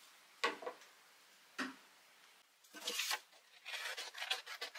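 Scissors cutting a paper template: a quick run of snips and scraping paper, several a second, starting about halfway through. Before it come two short knocks.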